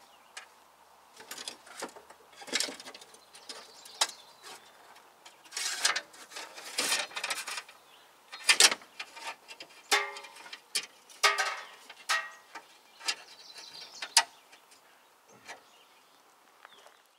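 Hand tools working on a steel brake line fitting: irregular metallic clicks, clanks and short scrapes as a wrench and locking pliers are put on and worked.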